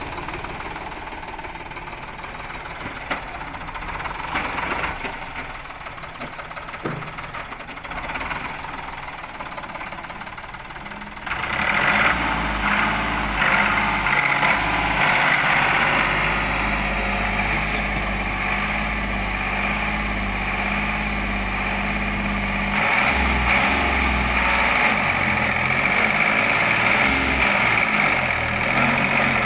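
SAME Commando tractor's diesel engine running steadily; about a third of the way in it suddenly gets much louder, with a heavy low rumble, and stays loud while the tractor is driven.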